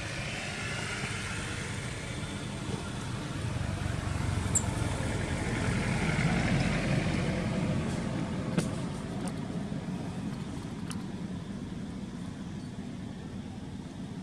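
A motor vehicle running past: a broad engine-and-road noise that swells to its loudest about six or seven seconds in and then fades, with a few faint clicks.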